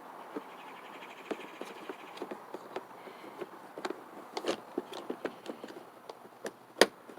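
Small padlock being fitted to the hasp of a plastic toolbox: scattered light clicks and taps of metal and plastic, with one sharper click near the end.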